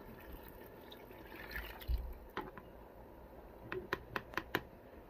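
Wooden spoon stirring a pot of thick spinach soup, a faint wet sloshing, with one sharp tap a little past halfway and a quick run of sharp taps about four seconds in.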